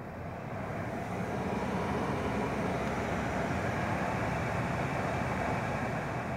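Heater blower motor of a Mercedes-Benz W211 running with a steady noise, growing louder over the first second or so and then holding. The owner believes the noise at a low fan setting means the blower motor needs servicing.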